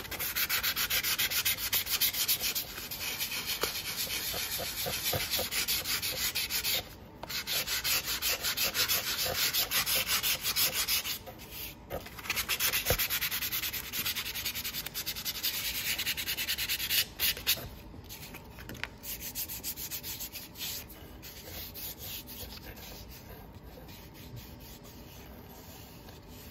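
Hand sanding with a folded sheet of sandpaper: quick back-and-forth scratching strokes over a small flat piece, roughing up its surface for fresh flocking. The strokes stop briefly twice and grow lighter and more broken in the last third.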